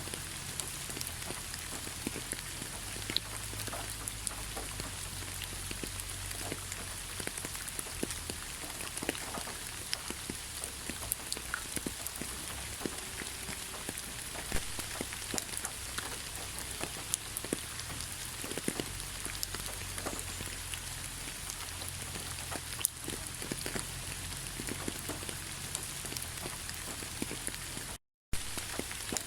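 Heavy rain falling steadily, a dense hiss with many separate drops striking close by. The sound cuts out completely for a split second near the end.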